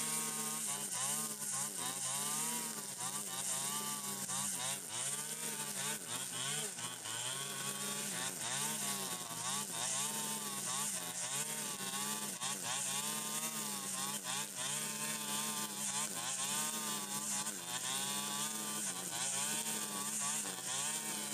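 Stihl FS 120 brush cutter's small two-stroke engine running under load, its engine speed rising and falling over and over as the cutting head sweeps through tall, dense cogon grass, with a steady hiss of grass being cut.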